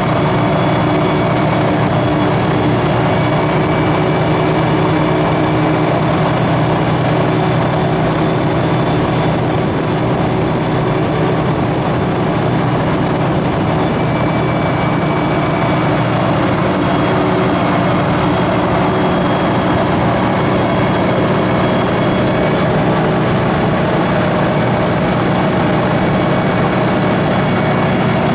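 Universal Hovercraft UH26S running steadily under way: the thrust engine and its caged propeller give a loud, even drone at a constant speed, over a steady rush of air.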